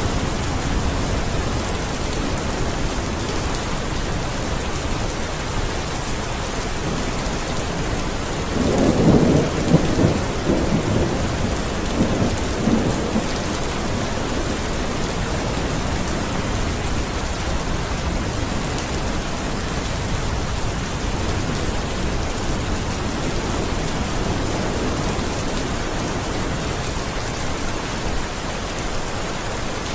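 Steady rain falling, with a roll of thunder rumbling for several seconds about a third of the way in.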